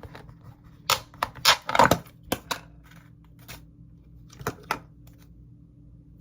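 Thick clear slime being handled, giving sharp clicking pops in two quick clusters, over a faint steady hum.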